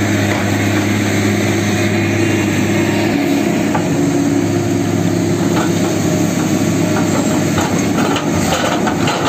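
Excavator's diesel engine running steadily, with the toothed steel bucket scraping and knocking into stony soil over the last second or so.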